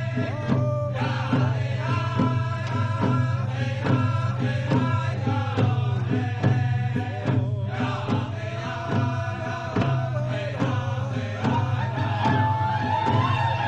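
Group of voices chanting a Native American song in unison over a steady hand-drum beat.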